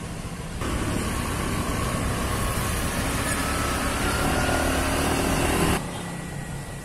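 Outdoor road ambience with a motor vehicle engine running. The noise steps up abruptly about half a second in and drops back just as suddenly about a second before the end.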